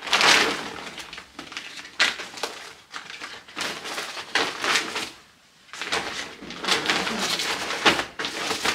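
Rustling and crinkling of a non-woven shopping bag and plastic-packaged items as hands rummage through them, in irregular bursts with a short pause about five seconds in.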